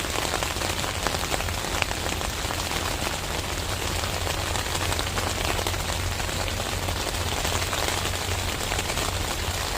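Steady rain falling, a dense, even patter of countless drops, with a low hum underneath.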